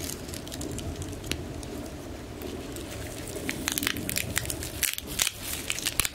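Wood fire crackling in a small folding wood stove: scattered sharp pops and snaps that come thick and fast in the second half, over a steady low rumble.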